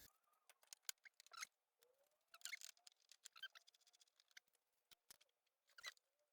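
Faint clicks, scrapes and small squeaks of the slide projector's parts being handled and fitted back together, with a few short rising squeaks.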